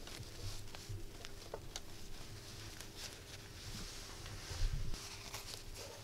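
Faint handling noises of a metal-kit robot model: the fabric cloak rustling and small clicks of metal parts as it is fitted and moved, with a soft low thump a little before five seconds in. A faint steady hum lies under it.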